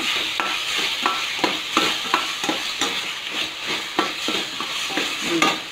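Chopped tomatoes frying and sizzling in hot oil with onions in a stainless steel pan. A metal spoon stirs them, scraping and clinking against the pan about three times a second. The tomatoes are being sautéed down to a thick paste for a curry base.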